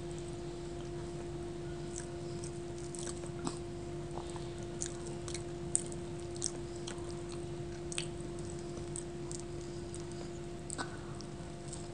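Close-miked chewing of luchi (puffed fried bread) with chana dal, eaten by hand, with scattered short wet mouth clicks. A steady low hum runs underneath.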